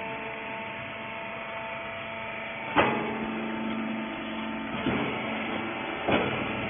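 Vertical hydraulic rags baler running, a steady machine hum, with three sharp clunks about three, five and six seconds in.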